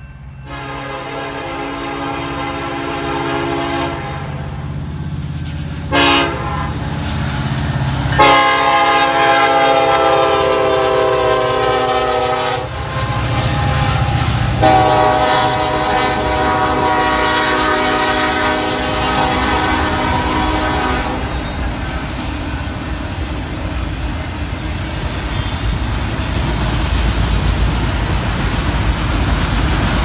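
Freight train locomotive air horn blowing a series of blasts: a long one, a short one, then two long ones, the last held about eight seconds, over the growing rumble of the approaching train. After the horn stops, the locomotives and freight cars roll past with a steady rumble and wheel clatter on the rails, louder near the end.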